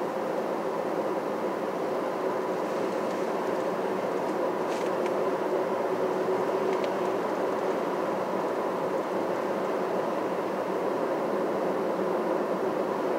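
Steady driving noise of a car on the road: a constant engine and tyre hum, with a couple of faint ticks about five and seven seconds in.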